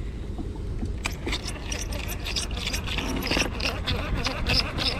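Fishing reel grinding and squeaking as it is cranked, heard as a rapid, irregular clicking and scraping over a steady low rumble.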